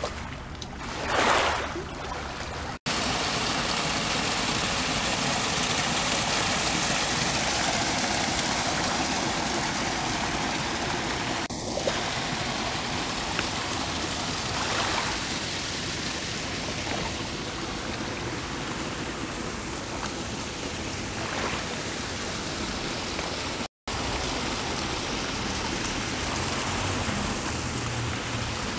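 Lakeshore ambience: a steady rushing hiss of water and open air, swelling louder briefly about a second in. The sound drops out for an instant twice, near the start and about three-quarters of the way through.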